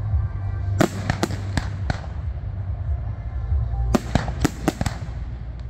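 Aerial firework shells bursting in the sky: a run of sharp bangs about a second in, and another quick cluster around four seconds, over a steady low rumble.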